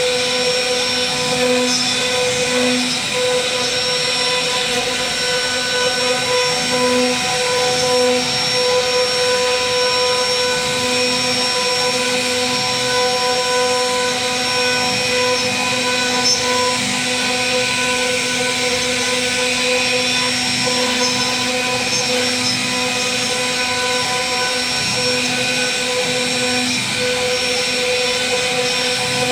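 CNC wood router running, its spindle giving a steady whine as the bit carves a wooden relief panel.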